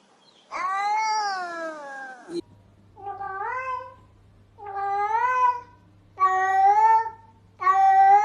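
Cat meowing: one long, drawn-out meow, then four shorter meows about a second apart, each rising in pitch, with a low steady hum behind them from about two and a half seconds in.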